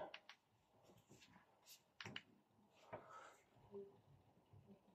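Near silence: a few faint clicks and soft rustles from handling a torch and phone.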